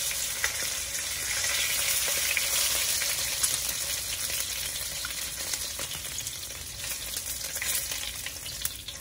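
Beef short ribs searing in hot grease in a wok, sizzling and crackling steadily as they are turned, the pan on high heat.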